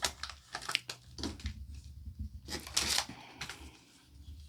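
Foil booster-pack wrapper being torn and crinkled as trading cards are handled: a run of short rustles and crackles, the loudest about two and a half seconds in.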